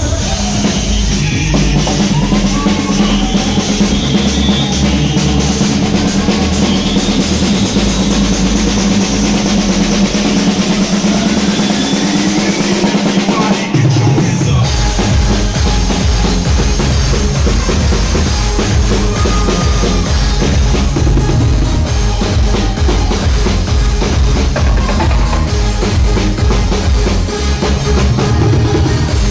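A live drum kit with timbales and toms is played over loud dance music. About halfway through, the beat changes to a fast, even kick-drum pulse.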